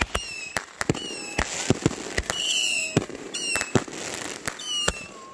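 Consumer aerial fireworks going off: a rapid run of sharp bangs mixed with short whistles that fall in pitch, and crackling bursts in between.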